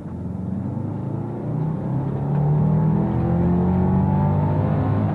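Subaru Forester engine accelerating at full throttle from a standstill, its pitch rising steadily and getting louder over the first couple of seconds, then holding loud while still climbing.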